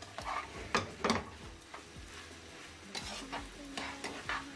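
Metal tongs scraping and clacking against a frying pan as pad thai noodles and egg are tossed and stirred, over a low sizzle of the food frying. The sharpest strokes come about a second in and again in a quicker run near the end.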